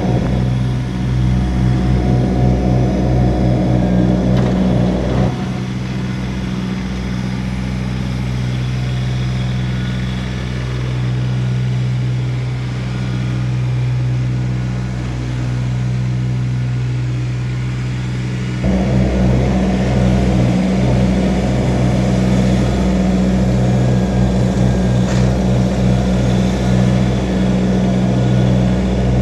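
Kubota BX1850 compact tractor's three-cylinder diesel engine running steadily. The sound eases off a little about five seconds in and comes back up around eighteen seconds in.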